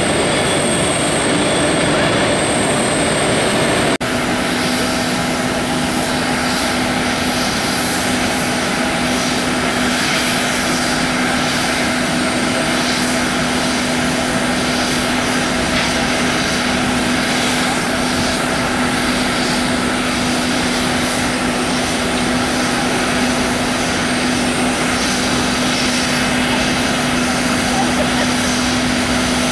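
Jet airliner engine noise: a steady, loud rush with a constant hum-like tone under it. The sound changes abruptly about four seconds in, where the recording cuts.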